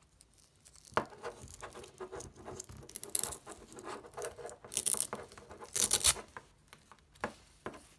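Adhesive Velcro tape being peeled and pressed onto a 3D-printed plastic dock by hand: rustling, scraping and small clicks, with three brief louder rasps from about three seconds in.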